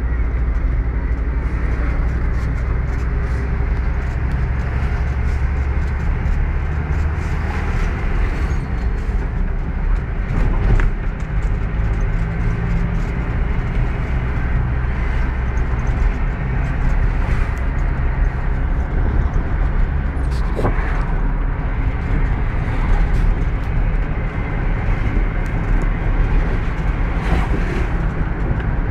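Car driving along a paved road, heard from inside the cabin: a steady rumble of engine and tyre noise, with a couple of brief knocks about ten and twenty seconds in.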